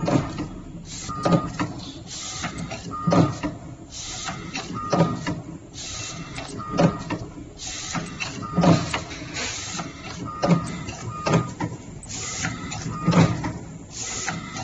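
Instant coffee powder stick packing machine running. It clacks in a steady cycle about once a second, each stroke with a short hiss.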